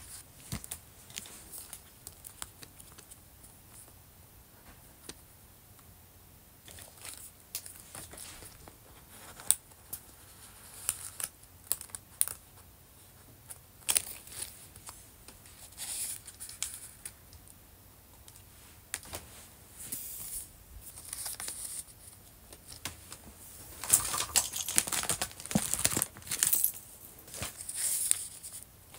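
Clear plastic binder sleeves crinkling and rustling as photocards are slid into their pockets, with small clicks and taps from the cards and pages. The handling is sparse at first and grows busier and louder in the last few seconds.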